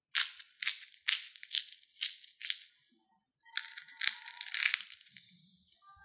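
Crispy crust of a fried potato-and-corn ball crackling in a run of short crunches as fingers squeeze it, then crackling longer as it is torn open about three and a half seconds in.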